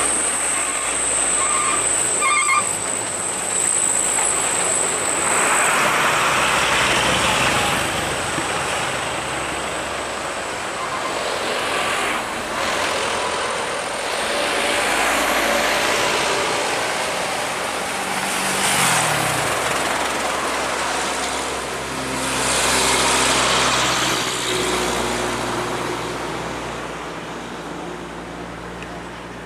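Heavy diesel cargo trucks passing one after another on a highway, engines running, the sound swelling as each goes by. One engine note drops in pitch as it passes. A few short beeps about two seconds in.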